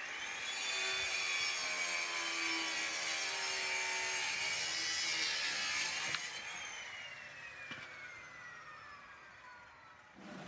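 Circular saw with a diamond blade cutting through a fiber cement siding plank. About six seconds in the cut ends and the blade spins down with a falling whine that fades out.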